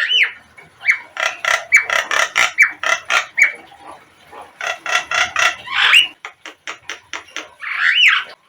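Javan myna (jalak kebo) calling: rapid harsh, chattering notes mixed with short rising whistles, a brief pause about four seconds in, then more chatter ending in a rising-and-falling whistle.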